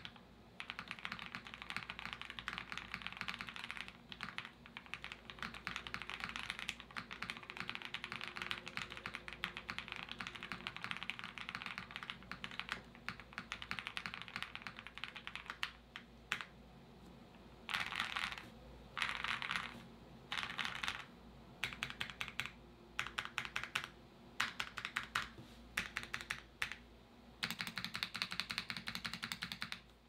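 Typing on a custom KBD8x MKII mechanical keyboard with a polycarbonate plate, lubed Gazzew Boba LT linear switches and PBT keycaps: a fast stream of deep, thocky key strikes. About halfway through, the typing breaks into short bursts with brief pauses, then runs on steadily again near the end.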